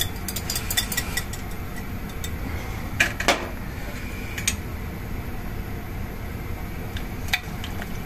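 A metal utensil clinking and scraping against a glass bowl as thick sake lees are scraped out of it into the soup pot. The clicks are scattered, with two sharper knocks about three seconds in and another near the end.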